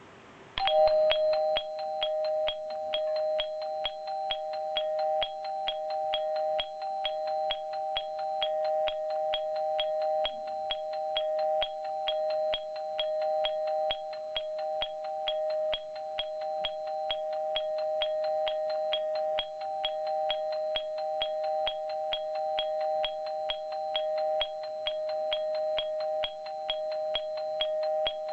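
JNR BZ21-type ATS warning-continuation chime (100-type, 7S, a DC100V unit for electric cars) striking an even, quick series of strikes, its two-note tone ringing on between them; it starts about half a second in. The tempo runs a little fast, even at the slowest setting, because its capacitor has been replaced.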